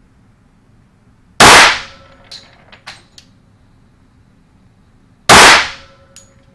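Two shots from a Glock 29 pistol firing 10mm Auto, Underwood 180-grain TMJ rounds, spaced about four seconds apart, each a very loud sharp crack with a short ringing tail. A few light clinks follow the first shot.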